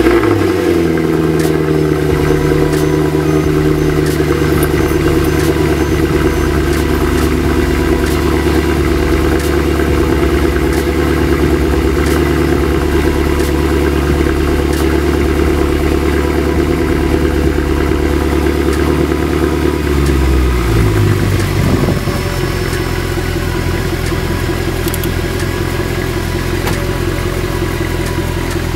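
Mercedes-Benz C63 AMG's 6.2-litre V8 running at a raised cold-start idle just after start-up, then dropping to a lower, steadier and slightly quieter idle about 20 seconds in.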